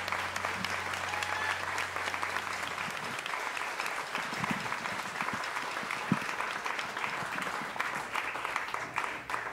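Audience applauding after a song, a dense patter of many hands clapping. A low steady tone lies under the applause for the first three seconds or so, and the clapping thins out near the end.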